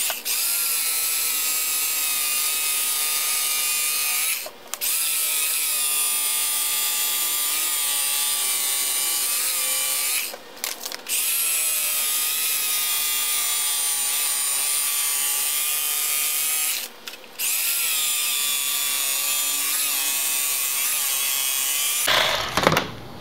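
Electric carving knife running steadily with its motor whine as the reciprocating blades saw through seat foam. It stops briefly three times, about every six seconds, and shuts off near the end.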